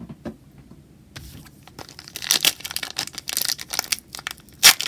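Foil trading-card pack wrapper crinkling in the hands and being torn open. It starts about a second in, grows busier, and ends with a sharp rip.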